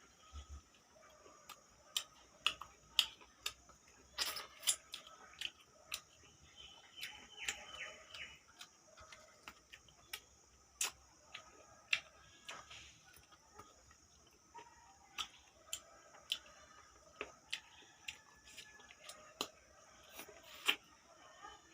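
Close-up eating sounds: chewing and lip smacks, heard as irregular sharp clicks, at times several a second, over a faint steady high hiss.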